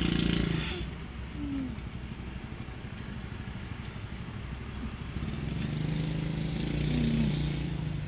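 Motorcycle engine running close by, louder in the first second and again from about five seconds in as the bike rides off, over a steady low engine hum.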